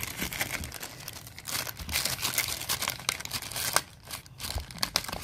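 Clear plastic bag crinkling and crackling in irregular bursts as hands work it open around a small jewelry box.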